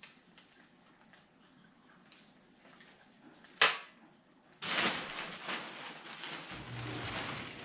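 A single sharp knock about three and a half seconds in, a porcelain doll set down on a tabletop; then, a second later, a black plastic bag rustling steadily as it is reached into and rummaged through.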